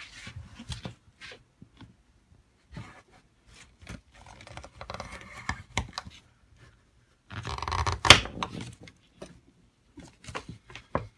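Freshly sharpened pocket knife slicing into reinforced rubber hose: short scraping, tearing rasps among light clicks of handling, the longest and loudest rasp about seven seconds in.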